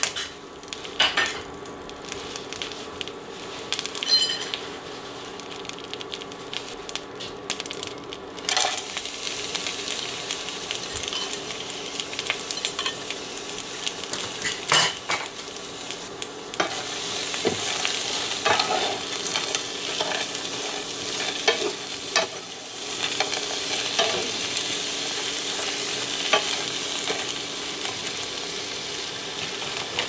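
Bok choy frying in sesame oil in a pan: a steady sizzle, with a utensil stirring and clicking against the pan now and then. The sizzle grows louder about halfway through, once frozen edamame goes into the hot pan.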